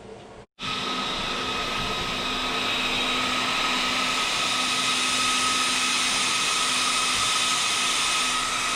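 Quad pack of small cooling fans on an RC monster truck's motor and ESC spinning at full speed: a steady whir and rush of air with a few constant tones. It starts abruptly about half a second in, as the fans are powered from the battery.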